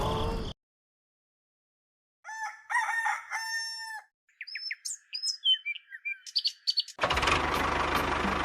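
A rooster crowing once after a moment of dead silence, followed by a few seconds of small birds chirping over a clean, quiet background. A dense, steady noisy sound starts abruptly near the end.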